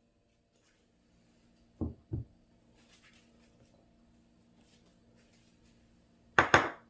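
Kitchenware being handled: two dull thumps about two seconds in, then two sharp clinks near the end, the loudest sounds, over a low steady hum.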